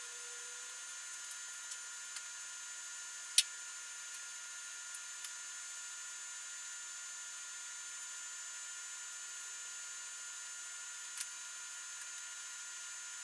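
Steady background hiss with a faint high whine, broken by a few short sharp clicks; the loudest click comes about three and a half seconds in, another near eleven seconds.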